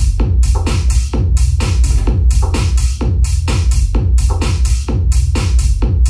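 Audiocase S10 battery-powered Bluetooth party speaker playing electronic dance music loudly. A heavy kick drum lands about twice a second, dropping in pitch on each hit, over a steady electronic backing.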